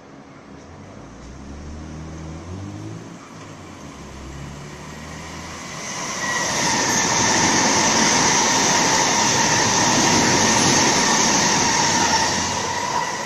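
A Sydney Trains H set (OSCAR) electric train approaches and runs past close by, growing louder as it nears. From about six seconds in, the wheels on the rails make a loud, steady rush with high ringing tones, easing off near the end.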